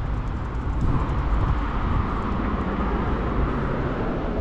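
Road traffic going by: a steady noise of tyres and engines, swelling about a second in as a vehicle passes.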